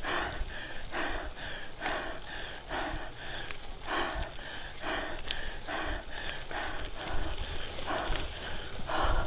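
Cyclist breathing hard and fast at race effort, about two loud breaths a second, over a low rumble.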